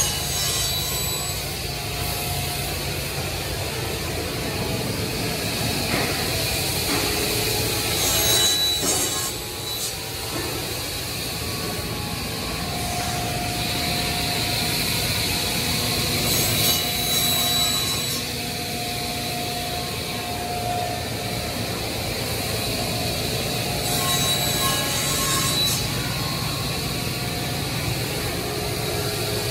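Woodmaster five-axis CNC router running a circular saw blade through a solid-wood panel. The spindle runs steadily, with louder bursts of cutting noise about every eight seconds as the blade passes through the wood.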